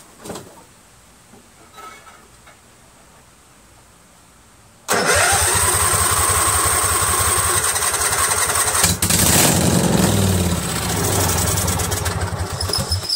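A Kohler Command V-twin lawn tractor engine is cranked by its electric starter, primed with carburetor cleaner sprayed into the carburetor throat because it won't start on its own fuel. The cranking starts suddenly about five seconds in with a quickly rising starter whine over rapid pulsing, changes character about halfway through, and cuts off sharply at the end.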